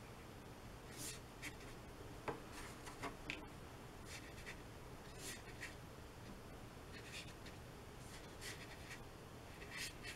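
A flat paintbrush stroking and dabbing across watercolour paper, heard as faint, short scratchy strokes coming irregularly, about one a second.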